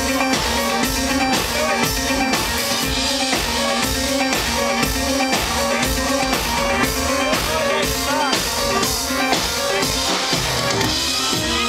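A live band playing electronic dance music with synthesizers, electric bass and a drum kit, driven by a steady beat.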